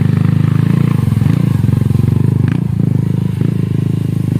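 Small motorcycle engine running loud and steady close by, with a fast throbbing beat. A couple of light clicks sound near the middle.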